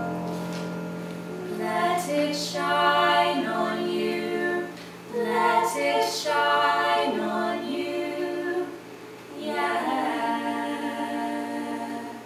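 Music: female voices singing in three long, held phrases over a steady low tone. Each phrase fades before the next begins.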